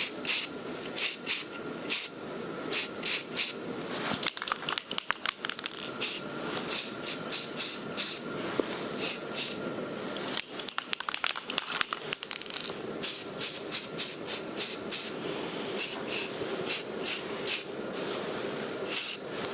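Aerosol spray-paint can sprayed in many short hissing bursts, dabbing camouflage spots onto the rifle.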